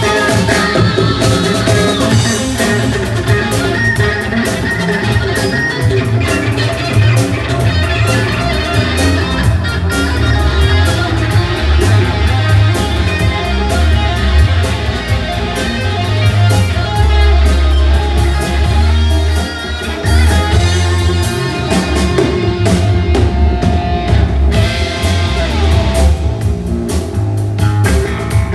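Rock-style band music: guitar with drum kit and a heavy low bass line, playing continuously.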